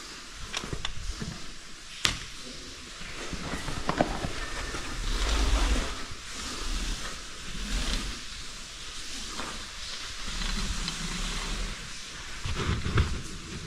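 A caver moving through a tight rock passage: heavy breathing and scuffing on rock, with a few sharp knocks of gear against stone and some low thumps.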